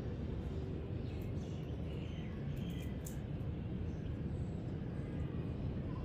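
Rabbits nibbling and chewing fresh green leaves, with soft faint crunches and clicks, over a steady low outdoor rumble and a few faint bird chirps.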